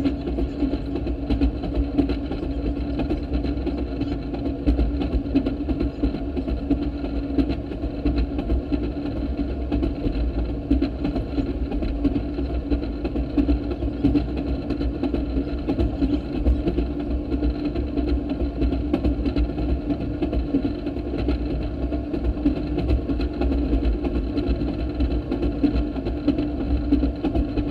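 Railroad speeder (track motorcar) running steadily along the rails: an even engine drone with a low rumble underneath.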